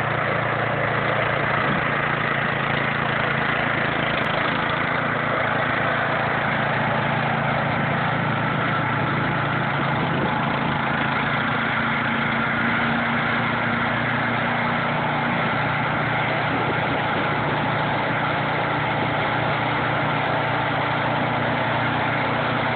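Gas-engine two-stage snowblower running steadily while it clears and throws deep snow.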